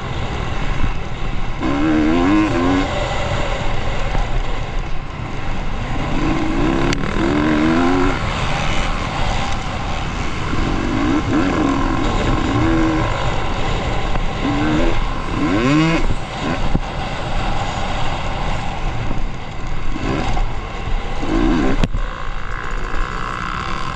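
Off-road motorcycle engine revving under varying throttle, its pitch swinging up and down in repeated short bursts over a steady bed of engine and wind noise.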